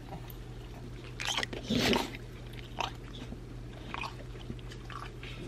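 A dog chewing and snuffling close to the microphone: a few short chewing sounds, the loudest cluster about two seconds in.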